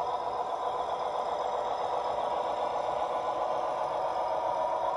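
Sound module of a Piko large-scale GE 25-ton diesel switcher playing a steady diesel engine sound as the model rolls along the track pushing a tank car, with light rattle from the wheels. The sound grows slowly louder as the locomotive comes closer.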